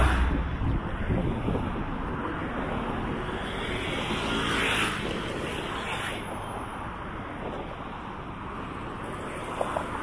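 Road traffic passing close by on a busy bridge road: cars and trucks going past with tyre and engine noise, swelling as each vehicle passes. The loudest pass is right at the start, with another about five seconds in.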